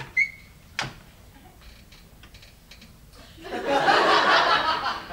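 Audience laughing, breaking out about three and a half seconds in after a few quiet seconds that hold only a short squeak and a single knock.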